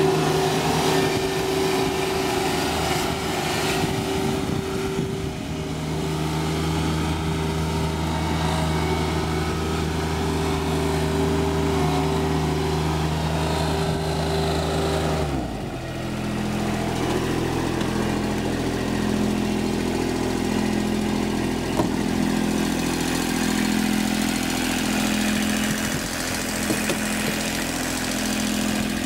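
Kubota D1105 three-cylinder diesel engine of a Jacobsen LF1880 fairway mower running steadily at working speed. About halfway through its speed drops quickly and it settles into a lower, steady idle.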